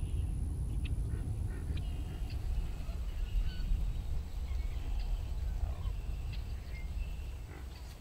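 Marsh ambience: wild birds giving scattered short chirps and brief whistled calls over a steady low rumble.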